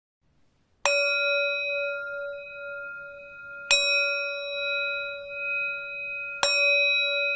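A bell struck three times, about a second in, near the middle and near the end, each stroke ringing on with a clear steady tone until the next.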